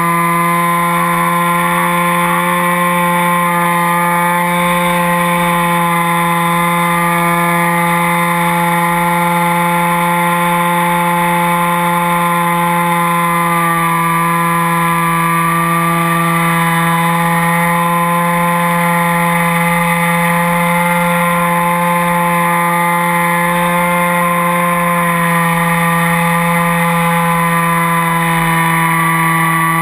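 Motor and propeller of a scratch-built RC biplane in flight, heard from on board: a steady droning hum with several overtones that eases slightly lower in pitch about halfway through, then comes back up, over a low wind rumble.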